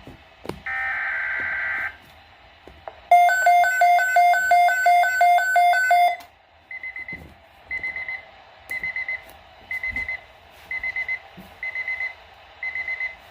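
Weather alert radio receiving an alert: a buzzing digital data burst about a second long (a SAME alert header), then a loud pulsing alarm tone, about three pulses a second for some three seconds, then short high chirping beeps about once a second.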